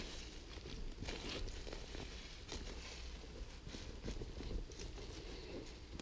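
Boots scuffing and tramping loose soil and leaf litter back into a freshly dug hole: faint, uneven scraping, crackling and soft patting.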